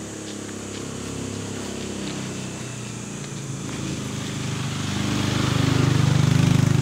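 Motorcycle engine of a tricycle (motorcycle with sidecar) coming up the road, growing steadily louder and loudest near the end as it pulls up alongside.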